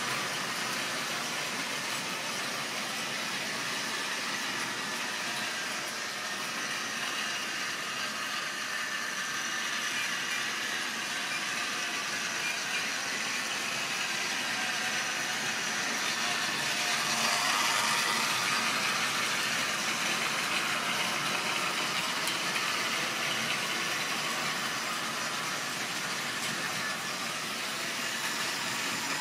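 Model railway train running on the track: the locomotive's small electric motor whirring and the wagons rolling over the rails. It gets louder about seventeen seconds in.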